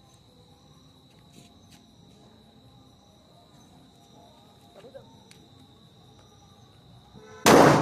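A Jugmug firecracker bomb exploding with one loud bang near the end. Before it, crickets chirp steadily with a faint high tone.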